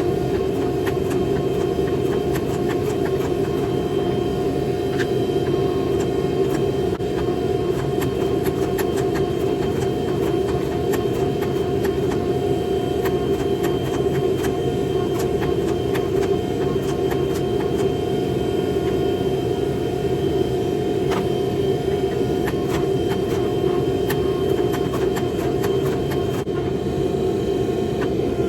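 Forge running steadily: a constant roaring hum with a steady tone in it, dotted with faint irregular crackling clicks.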